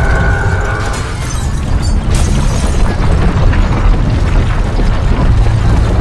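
Film sound effects of the ground and street breaking apart: a heavy, continuous deep rumble with crashes of falling debris, loudest in a cluster of impacts about two seconds in.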